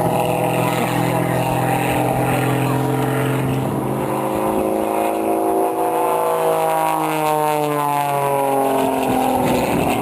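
Aerobatic plane's engine running hard through looping manoeuvres. Its note rises in pitch about halfway through, then falls again near the end as the plane climbs and comes round.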